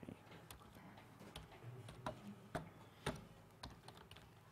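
Faint computer keyboard clicks: a few separate keystrokes at uneven intervals, with pauses between.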